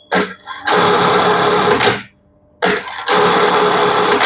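Sewing machine stitching in short runs, its motor giving a steady hum. It starts and stops briefly at first, runs for over a second, stops about two seconds in and starts again about half a second later. It runs smoothly, with no knocking or rattling from the mechanism.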